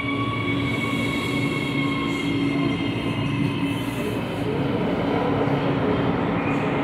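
CAF-built Metro de Medellín electric train arriving at the platform and slowing to a stop. Its electric drive gives a high whine that slowly falls in pitch and fades out about four seconds in, over a steady rumble of wheels on the rails.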